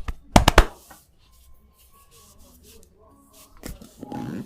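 A few sharp, quick hand slaps of a percussive head or body massage in the first second, then quiet rubbing and shuffling with a short muffled rustle near the end.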